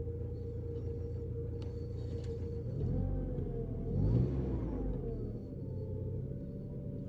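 VW Passat B5 engine idling, then revved once about three seconds in, the pitch rising and falling back to idle.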